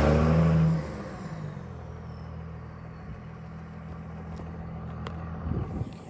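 Vehicle engine running: loud at first, easing off sharply about a second in, then running steadily at a lower level. Two light clicks come near the end.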